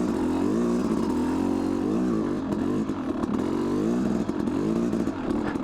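2002 Yamaha YZ250 two-stroke dirt bike engine revving up and down again and again as the throttle is worked, its pitch rising and falling.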